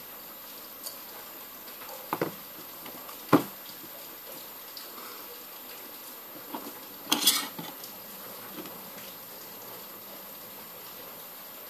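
Scattered small clicks and clatters of screwdrivers and phone parts being handled and set down on a wooden table, over a steady faint hiss. The sharpest tap comes about three and a half seconds in, and a short cluster of clatter follows around seven seconds in.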